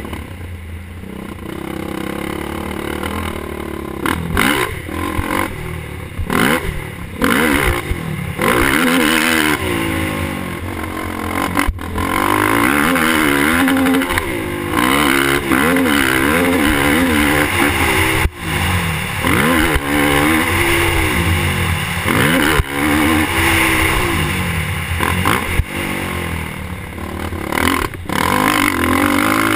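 Suzuki LTR450 sport quad's single-cylinder four-stroke engine revving hard, its pitch rising and dropping again and again as the throttle is worked on a motocross track, over a steady rushing noise. A few sharp knocks stand out.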